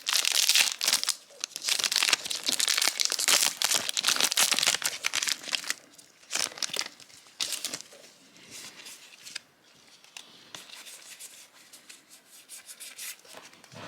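Foil booster-pack wrapper of trading cards crinkling and tearing open, dense for about the first six seconds, then quieter rustling and light clicks of the cards being handled.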